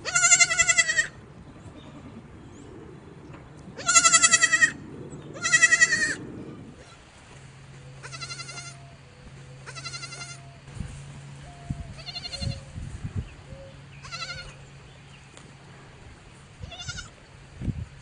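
Goat bleating over and over: about eight wavering, quavering bleats, the first three loud and the later ones fainter.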